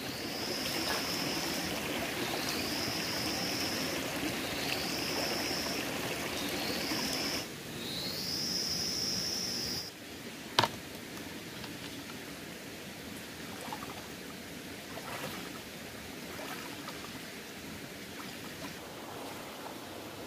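Shallow stream running over rocks. Over the first half a bird whistles five times, a short note that rises and then holds, about every two seconds. Halfway through, the water becomes softer, with one sharp click.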